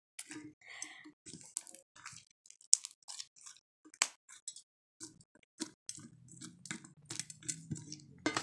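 Thick white slime filled with beads being squeezed and stretched by hand in a metal bowl, giving irregular sticky clicks and pops. A faint low hum comes in about halfway.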